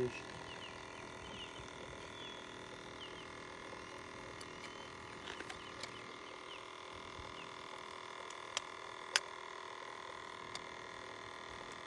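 Steady electrical hum with faint high chirps in the first few seconds, and two sharp clicks about eight and a half and nine seconds in.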